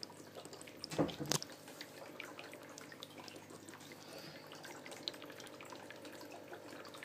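Aquarium water trickling and dripping, with many small drips over a faint steady hum. A few louder knocks come about a second in.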